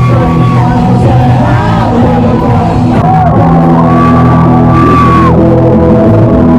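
Loud rock music with a singer, who holds a long high note at the start and a longer one in the middle over a steady bass and chords.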